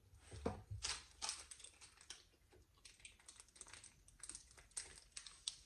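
A person chewing a gummy candy close to the microphone: a run of quick, irregular mouth clicks and smacks.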